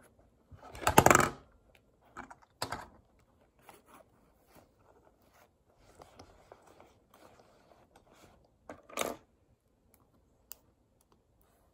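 Fabric pencil case and its mesh pockets rustling and scraping as pens are pulled out, with a loud rough rustle about a second in and shorter ones after. A few light plastic clicks of pens near the end.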